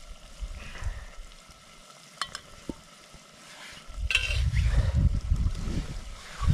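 Hands working raw chicken pieces in a steel bowl, with a few light clicks. About four seconds in a louder rustling rumble begins as the bowl is picked up and moved.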